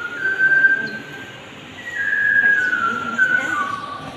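A person whistling a short tune, with clear held notes that step down in pitch over a low murmur of the room.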